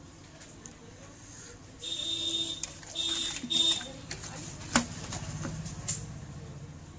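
A plastic switch board and plug handled on a table, with a sharp knock about two thirds of the way in and a smaller one shortly after. Before that, three short steady high tones sound in quick succession.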